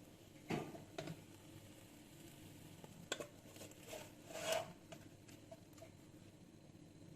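Light kitchen clatter of dishes and utensils: a couple of knocks about half a second in, then a few more clinks and a longer scrape around three to four and a half seconds in.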